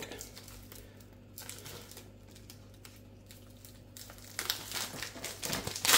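Plastic vacuum-pack film crinkling as it is pulled open by hand to free a sausage. It is faint and sparse at first, then louder and busier from about two-thirds of the way through.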